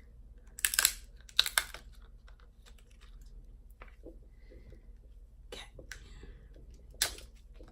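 Crab-leg shell cracking: a few short, sharp crackling snaps, loudest in two bursts about a second in and again near the end.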